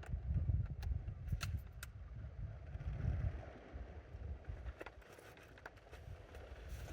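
Wind buffeting the microphone in gusts, a low rumble that swells and eases, with a few small clicks.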